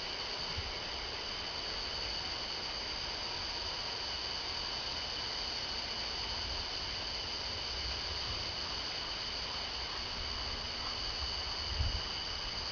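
Steady chorus of night insects, two continuous high-pitched drones over a hiss, with a soft low thump near the end.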